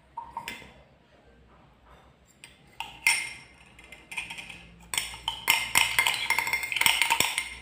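A teaspoon stirring liquid in a glass, clinking rapidly against its side with a ringing note. A couple of light taps come near the start, and the steady stirring starts about three seconds in, getting busier toward the end.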